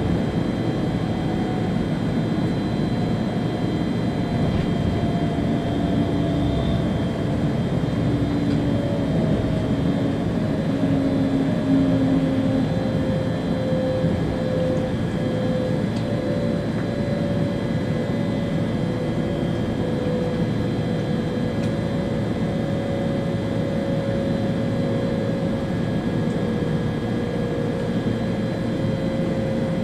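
Steady running noise inside the driver's cab of an ÖBB Railjet high-speed train travelling at speed: an even rushing rumble with a faint whine that slowly falls in pitch.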